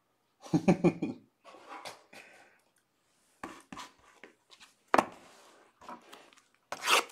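Cardboard box of Bowman Sapphire baseball cards being handled on a desk: a few sharp knocks and scrapes, the loudest near the end, with light rustling between. A brief vocal sound, like a cough, about half a second in.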